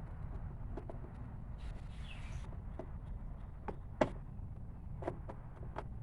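Light clicks and taps of hand tools working in a car door, with a short scrape around two seconds in and a sharper click about four seconds in, over a steady low rumble.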